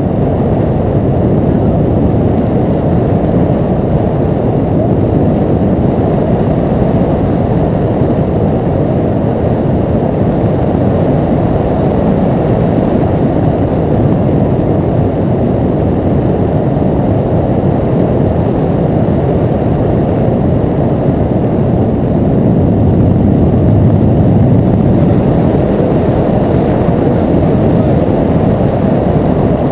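Wind rushing over a microphone mounted on a hang glider in flight: a loud, steady, rumbling buffet with no engine tone.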